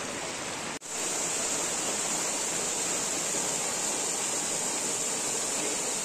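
Steady rush of a waterfall falling down a rock face onto boulders, broken by a brief gap about a second in.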